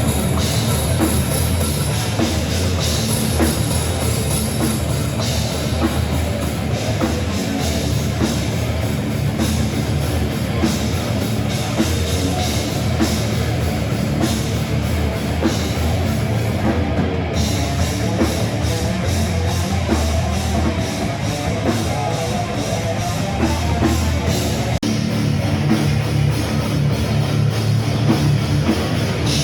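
Loud heavy rock music with a pounding drum kit and guitar.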